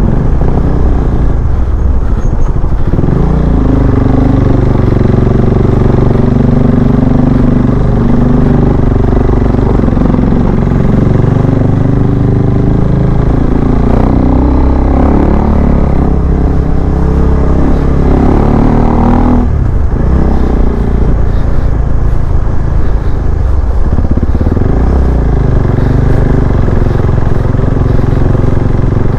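KTM 390 Adventure's single-cylinder engine running under way on a rough road, its revs rising and falling, with a sudden drop in revs about two-thirds of the way through.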